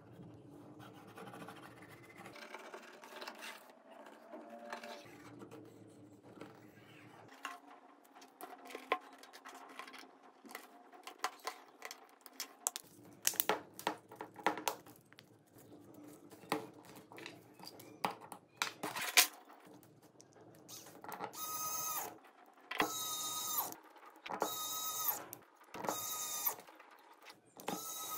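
Small clicks and taps of a Samsung Galaxy phone's screen and frame being pressed and fitted together by hand. From about two-thirds of the way through, an electric precision screwdriver whirs in four short runs, each about a second long, driving the screws into the phone's midframe.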